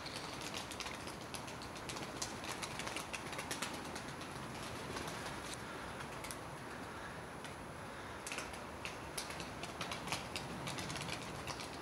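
Sharp, irregular clicks of wings clapping as a flock of play pigeons tumbles in flight, bunched in a run from about two seconds in and again from about eight seconds in, over a steady outdoor hiss.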